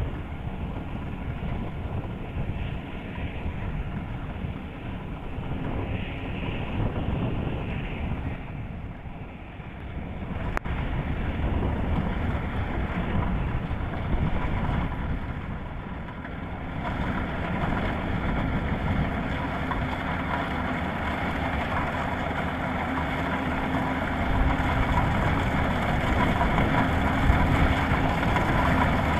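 Kubota DC-105X combine harvester running steadily while harvesting rice, a continuous mechanical drone of engine and machinery. It turns brighter and somewhat louder a little past halfway.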